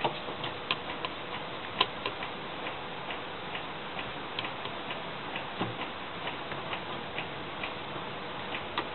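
Scattered light clicks and taps of washing-machine parts being handled as the pulsator is fitted back into an LG washing machine, irregular and about one or two a second, with a duller knock about halfway through, over a steady hiss.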